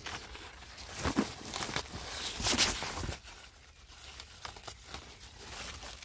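Cucumber leaves rustling and crinkling as a hand pushes through the vines close to the microphone, in several irregular rustles, the loudest about two and a half seconds in.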